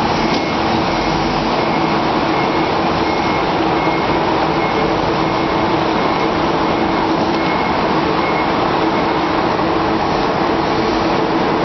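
Forklift running steadily, its engine and hydraulics giving a constant noise with a low hum, while a faint high beep repeats every second or so.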